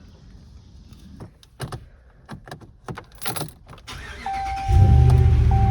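Keys jangling and small clicks inside a Ram pickup's cab. About four seconds in, a steady electronic beep tone starts, then the truck's engine starts and runs at a steady idle.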